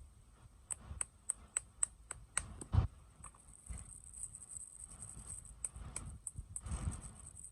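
Sweet and toy packaging handled close to the microphone: a quick run of light clicks, about three or four a second, then one louder thump, followed by soft rustling and a few more clicks.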